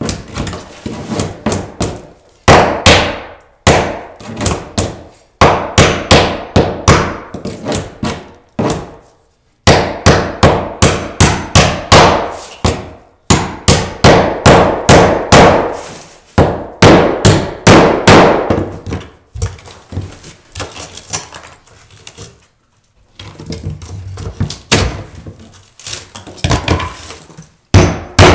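Hammer pounding ring shank nails down flush into a plywood subfloor, which also renails the subfloor: runs of sharp blows, about four a second, with short pauses between nails.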